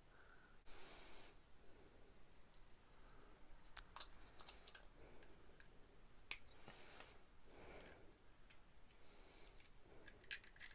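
A small plastic Hatchimals Colleggtimals toy egg being pressed and cracked open by hand: scattered sharp plastic clicks and crackles, the loudest just before the end. Soft hissing comes every two or three seconds.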